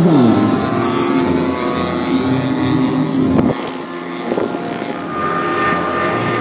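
Several giant-scale radio-controlled warbird models flying past together, their propeller engines droning at different pitches. One plane's note bends in pitch as it passes close at the start. The sound gets somewhat quieter about halfway through.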